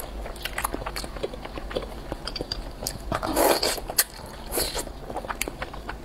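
Slurping and chewing of thick rice noodles, with wet mouth smacks and clicks throughout and a longer slurp a little past halfway.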